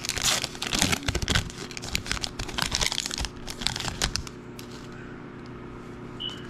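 Shiny red Panini Prizm Draft Picks trading-card pack wrapper being torn open and crinkled by hand, a dense crackling rustle for about the first four seconds. It then drops to faint handling as the cards come out.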